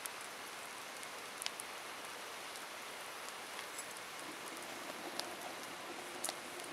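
Wood fire burning: a steady hiss with a few sharp, isolated crackles.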